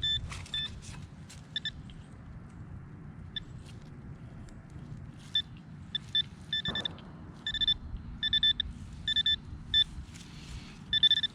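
Metal detector beeping on a target still in the dig hole: short beeps at one steady pitch, in scattered clusters and then a longer run near the end. A single dull knock comes about two-thirds of the way in.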